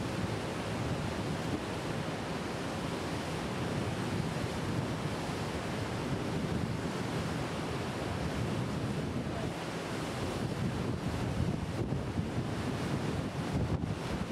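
Steady wind buffeting the microphone over the rush of river water past a moving boat.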